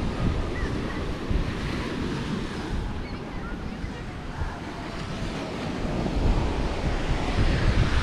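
Ocean surf breaking and washing onto a sandy beach, with wind buffeting the microphone. The surf swells a little louder in the last couple of seconds.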